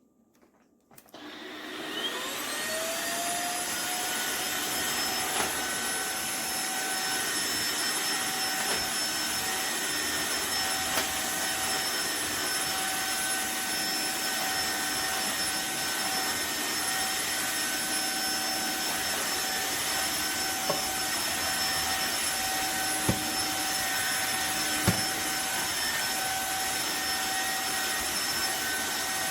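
Tineco cordless wet-dry floor cleaner's motor starting up with a rising whine about a second in, then running steadily, with a couple of faint clicks late on.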